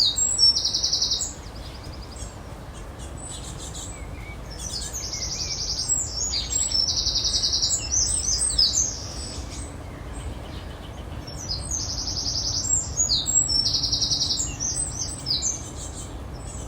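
Small songbird singing: three loud phrases of fast, high, buzzy trills, a few seconds apart, over steady background noise.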